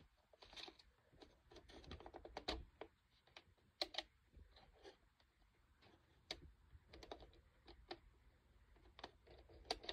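Faint, irregular clicks and taps of a Polaroid 600 instant camera being handled, its parts tried out by hand.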